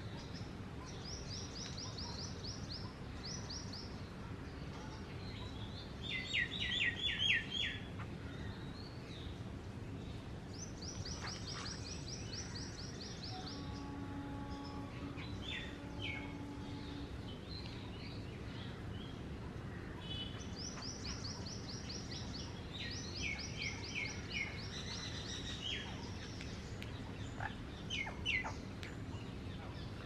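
High chirping trills from the small animals at a feeding spot, Indian palm squirrels and babblers: short runs of quick, evenly spaced notes repeated in bursts, the loudest run about six to seven seconds in.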